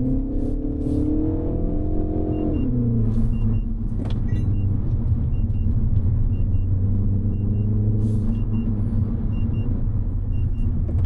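Mini Cooper S's turbocharged 2.0-litre four-cylinder engine pulling, its pitch rising for about two seconds and then dropping sharply, after which it runs at a steady note and starts climbing again at the very end.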